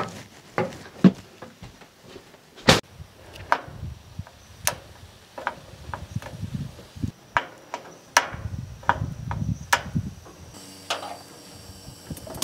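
Irregular knocks, clicks and clatter of someone moving about and handling things: an RV door being opened and the control knobs of a propane griddle being turned.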